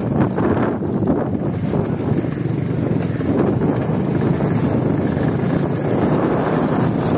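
A 70cc motorcycle engine running steadily under way, mixed with wind buffeting the microphone.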